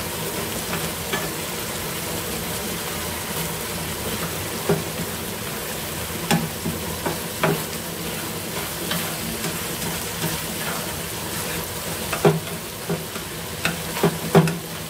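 Pork, luffa and green onions sizzling in sauce in a frying pan, stirred with wooden chopsticks that knock against the pan several times.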